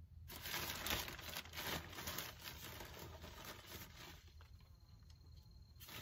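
Plastic soil bag rustling and crinkling as a hand reaches in and handles it, busiest for the first few seconds, quieter, then picking up again near the end.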